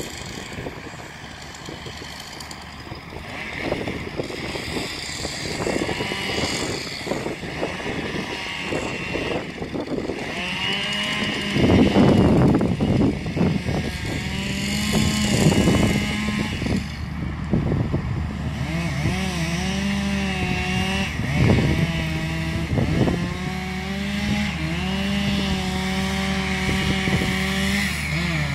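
John Deere Timberjack 1110D forwarder's diesel engine running as its crane works. From about twelve seconds in, a Stihl MS 661 C chainsaw runs and cuts, its pitch rising and dipping under load over the forwarder's steady hum.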